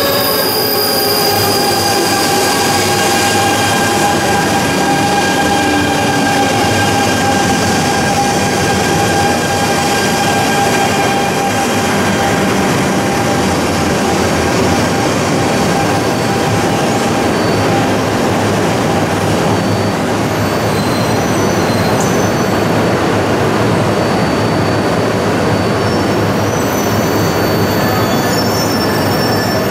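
E926 'East i' Shinkansen inspection train pulling in to a stop: its motor whine falls in pitch over the first few seconds as it slows, over a steady running rumble and hum. Short high squeals come in the last several seconds.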